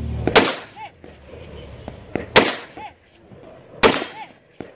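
Rifle shots fired one at a time: three sharp cracks, the second about two seconds after the first and the third about a second and a half later. Each crack is followed about half a second later by a short, faint ring.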